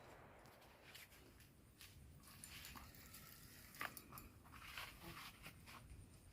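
Near silence with faint, scattered rustles and small clicks, one slightly sharper click a little before the four-second mark.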